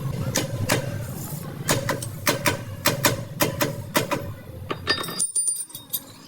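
A series of sharp, irregular knocks and clinks, about two or three a second, over a low hum. A few high, thin tones come near the end.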